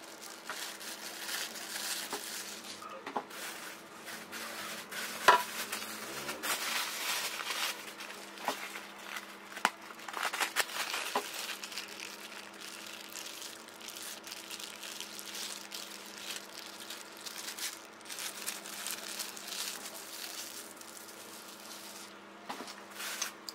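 Plastic takeaway bag crinkling while Padang-style vegetable curry (gulai) is poured and squeezed out of it into a glass bowl of lontong, with soft wet pouring and a few sharp clicks. A faint steady hum sits underneath.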